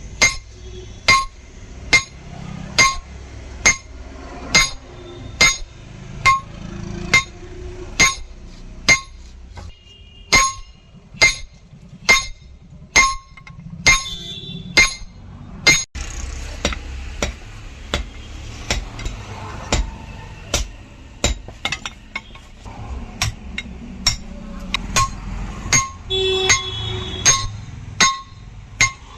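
Hand hammer forging steel on an anvil, each blow giving a ringing clang, about two blows a second. The steel is a tractor leaf spring being shaped into an axe head.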